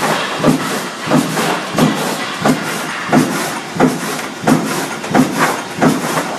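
Industrial film-processing machine running its cycle: a steady mechanical running sound with a sharp knock repeating about one and a half times a second, each followed by a lighter click.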